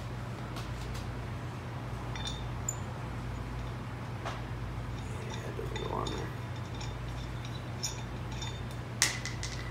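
Light metallic clicks and clinks of a steel lug nut being tried on the rear hub's wheel studs by hand, testing which stud has damaged threads. A sharper metal clink with a short ring comes about 9 seconds in. A steady low shop hum runs underneath.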